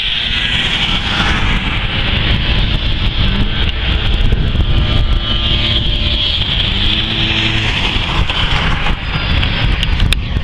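Vintage racing snowmobiles' two-stroke engines running at high revs around an oval ice track, a loud steady engine sound with the pitch shifting as the sleds go by.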